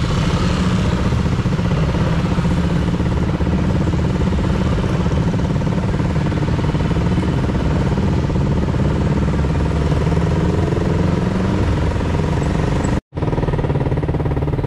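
Honda CBR motorcycle engine running at a steady, even pitch, with a brief break near the end.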